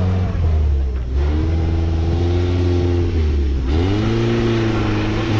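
Maruti Gypsy's petrol engine revving under load as the four-wheel drive climbs a steep sandy bank. The engine note falls off about a second in, holds, then dips and climbs again near the end.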